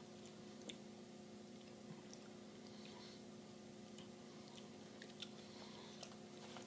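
Faint chewing of microwave popcorn, with a few soft crunches scattered over a steady low hum.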